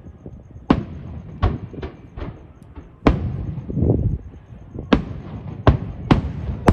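Aerial fireworks bursting: about eight sharp bangs at irregular intervals, a few close together, with low rumbling and crackle between them.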